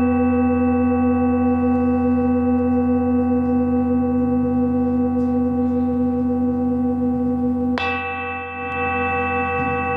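Monochord and singing bowls ringing in a steady, layered drone of sustained tones. A fresh stroke about eight seconds in briefly dips the sound, and a slightly different chord of ringing tones then carries on.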